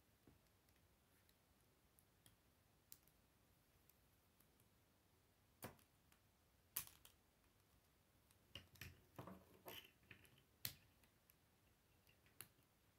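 Plastic K'nex rods and connectors clicking as they are snapped together by hand: faint, sparse sharp clicks, with a quick run of several clicks and rattles about two-thirds of the way in.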